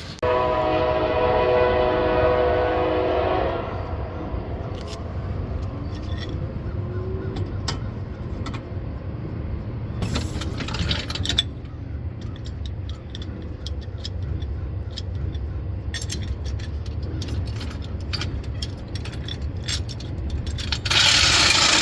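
Honda Civic EK engine running through its freshly re-gasketed full exhaust, a steady low exhaust note. For the first three or so seconds a steady higher raspy tone sits over it, then dies away. Scattered metallic clicks and jingles come near the end.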